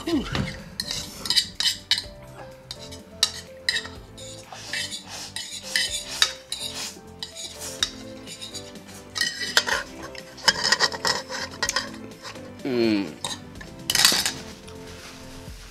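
Metal spoon scraping and clinking against a ceramic bowl, scooping up the last of the ramen, with slurping from the tipped bowl.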